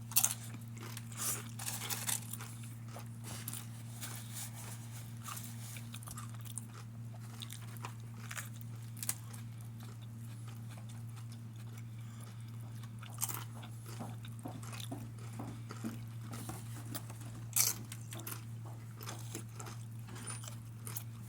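A person chewing and crunching food close to the microphone, with irregular crisp bites and mouth clicks, over a steady low electrical hum.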